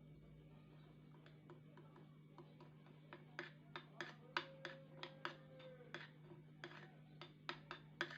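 A run of short, light taps or clicks, irregular and coming more often towards the end, over a faint steady hum.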